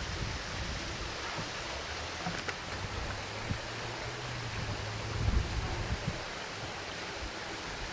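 Outdoor ambience of wind on the microphone: a steady rushing hiss with a couple of low buffets about two-thirds in. A faint low hum sits under it in the middle.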